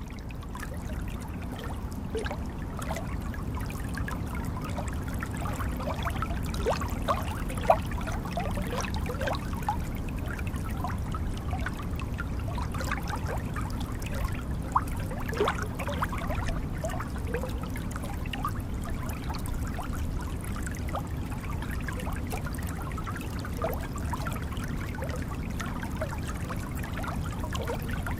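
Jungle stream flowing, a steady rush of water with many small bubbling plinks and gurgles scattered through it.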